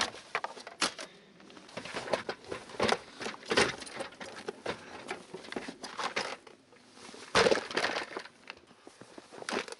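Handling noise as an office chair is wrestled out of a vehicle's cargo area and carried off: scattered knocks, clunks and rustling, with the loudest bump about seven and a half seconds in.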